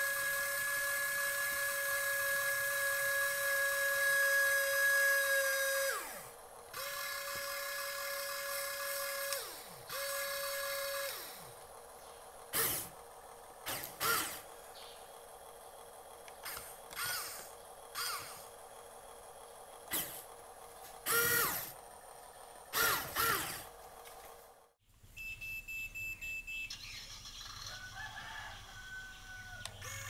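Small electric gear motors in a cardboard model grader whirring as they work its blade: a steady high whine for about six seconds that sinks in pitch as the motor stops, then shorter runs and a string of brief on-off bursts. Near the end the sound cuts to a quieter, different background.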